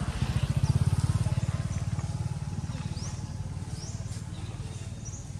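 A motorbike engine running, loudest about a second in and then slowly fading, with a few short high chirps over it.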